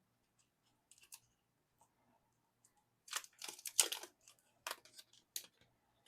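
Packaging around a photo card being handled and opened by hand: short crinkling and scraping rustles, busiest about three to four seconds in.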